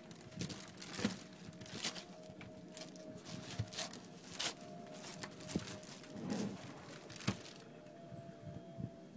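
Pressed red-grape pomace being dug out of a wine press basket and dropped into a bin: soft scattered rustles, crunches and knocks, over a faint steady hum.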